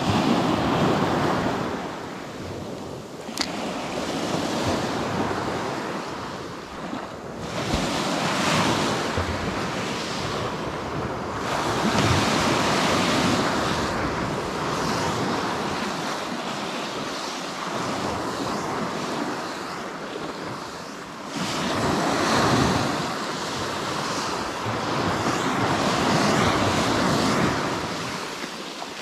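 Small sea waves breaking and washing up the beach, the surf swelling and easing every few seconds, with wind on the microphone. A single sharp click about three seconds in.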